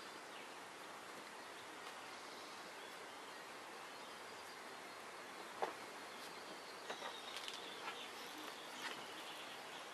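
Quiet steady background hiss with faint bird chirps in the second half, and a few soft taps and clicks from hands working fly-tying materials at the vise, the clearest a little past halfway.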